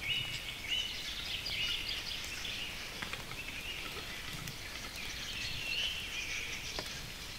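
Birds calling in a run of short high chirps and trills over a soft, steady hiss of light rain in the forest.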